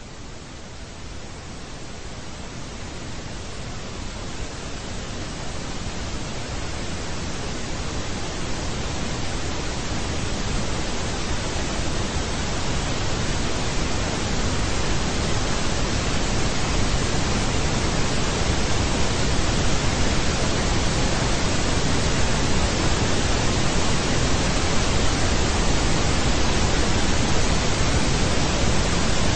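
Analog television static hiss: an even rushing noise that grows steadily louder over the first half or so, then holds at full level.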